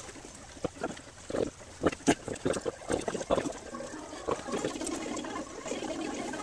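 Plastic squeeze bottle squelching and sputtering as it pushes out pancake batter, a quick irregular string of wet spurts over the first few seconds. After that it settles into a softer, steady hiss.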